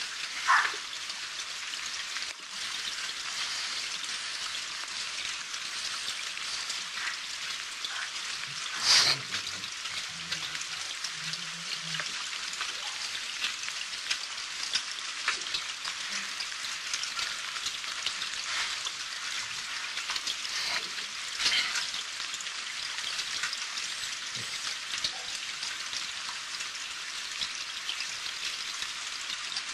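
Steady crackling hiss with scattered small clicks in a police dashcam's audio track, with a brief louder noise about nine seconds in.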